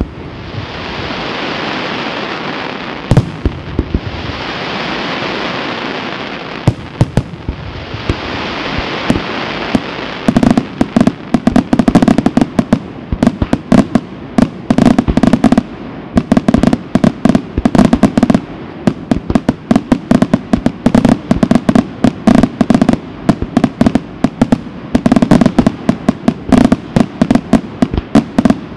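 Senatore Fireworks display: aerial shells burst into long crackling hisses that swell in three waves, with a few sharp bangs among them. From about ten seconds in comes a dense, rapid barrage of loud bangs.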